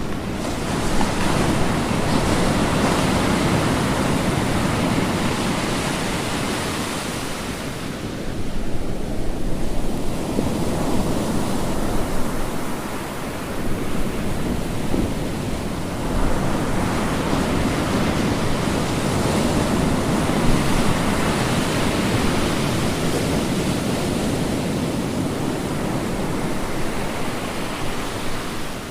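Ocean waves breaking and washing on a shore, a continuous surf that swells and ebbs as successive waves roll in, with dips in between near 8 and 13 seconds in.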